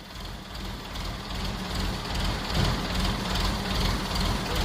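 Heavy workshop machinery running steadily with a low hum and rumble, growing louder over the first two seconds, then holding.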